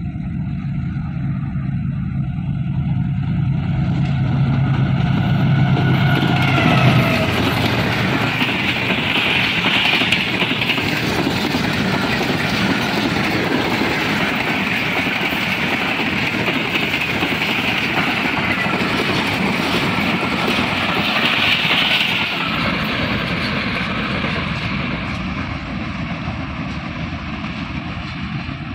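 A diesel-hauled passenger train running through: a low engine hum as the locomotive comes up, then a steady rushing rattle of wheels on the rails as the coaches go by, fading over the last few seconds as the train draws away.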